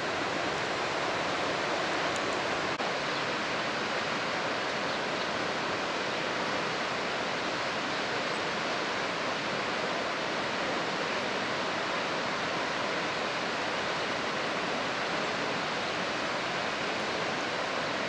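The Rhine Falls: a large river waterfall's steady rushing whitewater and churning river below, an even unbroken noise.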